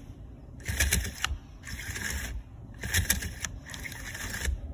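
Stihl string trimmer's recoil starter test-pulled twice: the rope rasps out through its eyelet and the spring-loaded pulley spins it back in with light clicks. The rewind spring has the right tension, pulling the rope fully back in without hitting the end of the spring.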